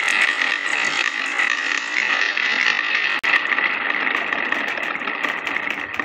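A stream of glass marbles rolling down a wooden marble-run slope: a continuous dense clatter of glass on wood and glass on glass, broken by a momentary drop-out about three seconds in.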